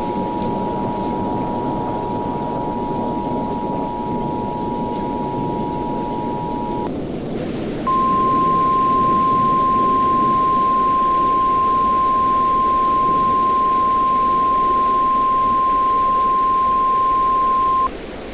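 Emergency Alert System attention signal: two steady tones sounding together for about seven seconds over a steady hiss. After a brief gap, the single steady NOAA Weather Radio warning alarm tone follows, louder, for about ten seconds and cutting off near the end.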